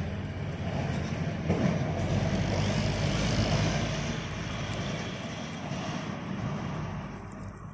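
An engine running steadily with a low drone, growing louder about two seconds in and easing off near the end.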